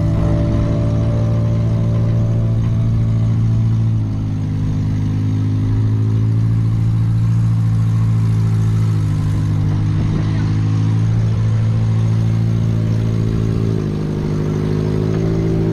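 An off-road 4x4's engine running at low, steady revs, its pitch shifting slightly every few seconds.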